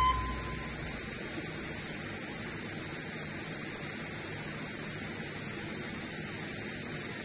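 Steady, even hiss of outdoor ambience with no distinct events; a held musical note fades out right at the start.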